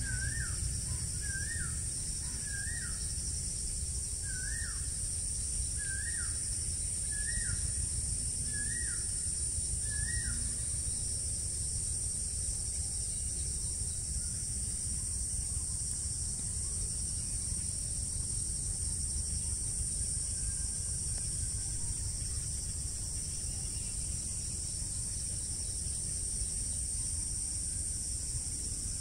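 Outdoor ambience of a steady high-pitched insect drone, with a bird repeating a short rising-and-falling call about once a second until roughly ten seconds in. A low rumble sits underneath.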